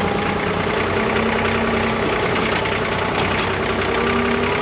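John Deere 3039R compact tractor's three-cylinder diesel engine running steadily.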